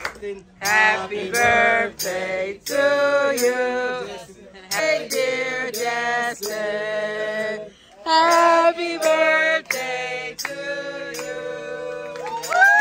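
A group of men and women singing a birthday song without accompaniment, in several sung phrases with short breaks between them and a long held note near the end, with hands clapping along.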